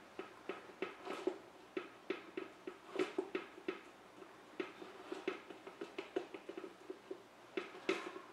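Serrated knife sawing horizontally through a cooled genoise sponge cake, in short back-and-forth strokes at about three a second.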